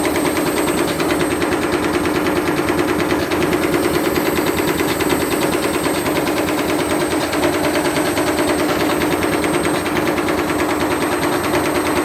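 Universal washing-machine motor belt-driving a Candy tumble dryer's drum at high speed: a loud, steady running sound with a fast, continuous clatter.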